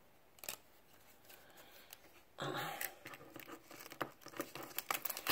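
Rigid plastic trading-card holders and sleeves rustling and clicking as cards are handled and swapped: a single click about half a second in, a longer rustle about two and a half seconds in, then a run of short clicks and rustles.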